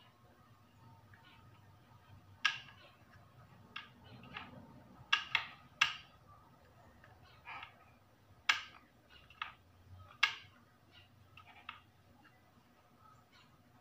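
PCP air rifle being handled, making about a dozen separate sharp clicks and light knocks at irregular intervals, the strongest around two and a half, five to six, eight and a half and ten seconds in.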